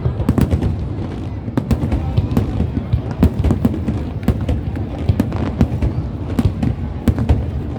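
Fireworks going off: a dense, irregular run of sharp bangs and crackles from many overlapping bursts, over a steady low rumble.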